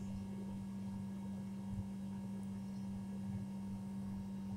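A steady low hum: one constant tone that holds unchanged throughout, over faint room noise.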